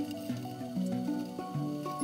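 Background instrumental music: a melody of held notes changing in steps over sustained bass notes.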